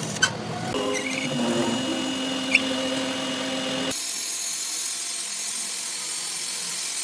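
Workshop power tools or machinery running with a steady whine and hum, with two sharp clicks in the first few seconds. About four seconds in the sound changes abruptly to a thinner, higher whine with the low hum gone.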